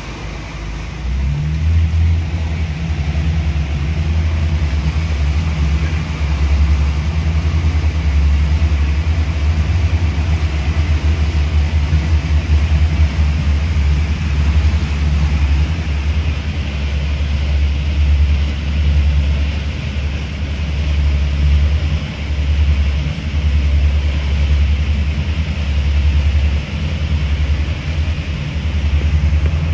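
Speedboat's twin outboard motors running under way, a steady low drone over the rush of water along the hull. The drone grows louder about a second in.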